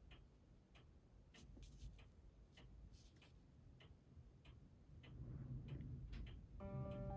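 Faint light ticks, about two or three a second, as a fine metal applicator bar touches and scrapes a small photo-etched brass dome while working UV resin into its openings. Music with steady held notes comes in near the end.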